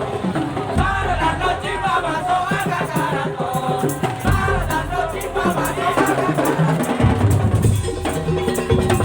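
Madurese tong-tong ensemble playing: dense beating of wooden and bamboo slit drums and other percussion under a wavering melody line. Near the end the melody gives way to a held note over the percussion.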